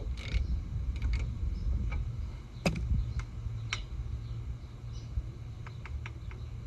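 Scattered sharp metallic clicks and taps from hand tools working on the brake caliper, the loudest about a third of the way in and a quick run of several near the end, over a low steady rumble.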